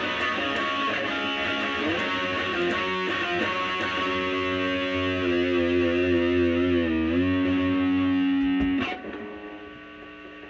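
Distorted electric guitar played through an EVH LBX-S 15-watt tube amp on its red channel, boosted by an Ibanez Tube Screamer Mini overdrive pedal. Busy riffing gives way to a held chord that wavers in pitch, which is cut off about nine seconds in, leaving the amp's steady hum.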